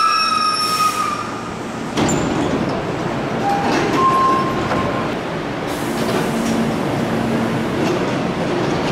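Hankyu commuter train stopping at a subway platform: a high brake squeal fades out about a second in, then its doors open with a sudden clunk about two seconds in. A short electronic tone and bursts of air hiss follow over a steady low hum and platform noise.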